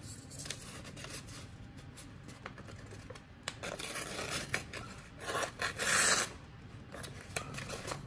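Sheet of paper being sliced by the curved gutting blade of a Victorinox RangerGrip 57 Hunter pocket knife, with paper rustling as it is handled. The cuts come as a few short hissing strokes in the second half, the loudest about six seconds in. The blade cuts the paper cleanly, a sign that it is super sharp.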